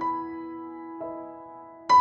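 Slow, gentle background piano music: held notes that slowly fade, a new note about a second in, and a louder chord near the end.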